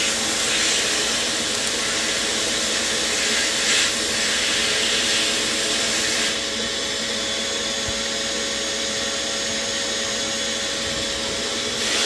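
Blast cabinet running: compressed air hissing through the blast gun as glass bead media sprays rust off steel vise grips, over the steady hum of the cabinet's dust-extraction system. The highest part of the hiss drops out about six seconds in and comes back near the end.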